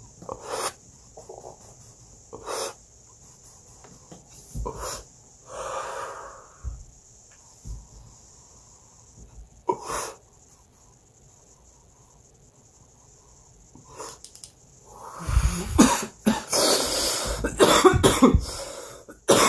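Soft breaths and a few faint clicks, then, about fifteen seconds in, a loud fit of coughing lasting several seconds: a person coughing on a hit of cannabis concentrate vapour.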